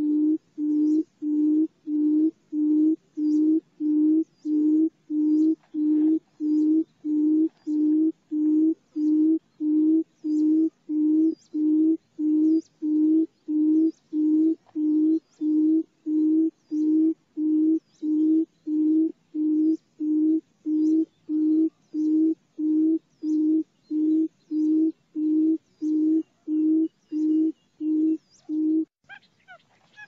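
Barred buttonquail's lure call: a long, even series of low hoots, about three every two seconds, which stops shortly before the end.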